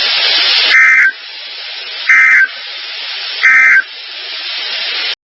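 Three short warbling data bursts of the SAME end-of-message code on NOAA Weather Radio, about 1.3 seconds apart, over steady radio static hiss. The static cuts off suddenly just before the end. The bursts mark the end of the tornado watch broadcast.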